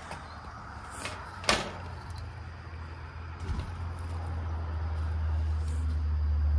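A sharp knock about one and a half seconds in, then a low steady rumble that grows louder through the rest.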